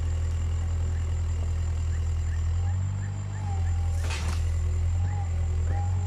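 Caterpillar 305.5E2 mini excavator working, its diesel engine running steadily. The engine note changes briefly about three seconds in, and there is a short hiss just after four seconds.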